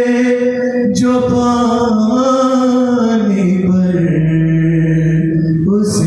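A young man's solo voice chanting a Muharram lament (noha), unaccompanied, holding long notes. There is a short break for breath about a second in, and the melody steps down to a lower note about halfway through.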